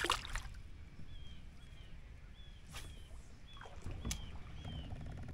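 A bird chirping: short, high, down-slurred notes repeated about twice a second, over a low steady rumble, with a few sharp clicks in between.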